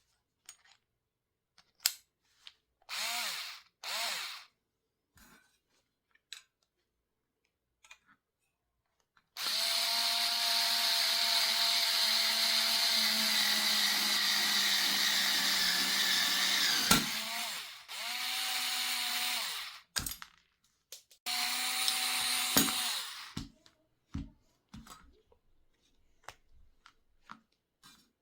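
Electric drill running in bursts: two short spin-ups a few seconds in, then a long steady run of about eight seconds, followed by two shorter runs, with small clicks and knocks between them.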